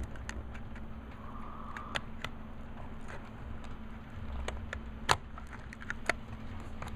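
Small plastic clicks and taps of a Walthers Proto 2000 RS27 model locomotive's body shell being handled and pressed onto its frame by fingers, with the loudest click about five seconds in. A steady low hum runs underneath.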